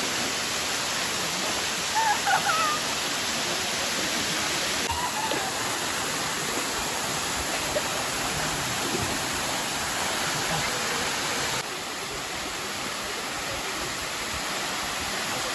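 Waterfall rushing steadily over limestone cascades into a pool, with faint distant voices about two seconds in. The rush drops a little in level about three quarters of the way through.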